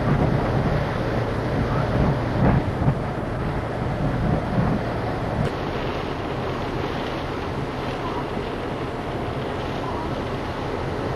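Hurricane-force wind buffeting a camcorder microphone over a steady rushing noise. It is gustier, with a few thumps, in the first five seconds, then steadier.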